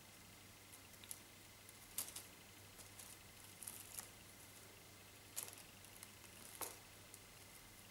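Faint, scattered soft taps and rustles as two kittens pounce and bat at a feather wand toy on a fleecy cat bed, with a few louder taps about two, five and a half and six and a half seconds in.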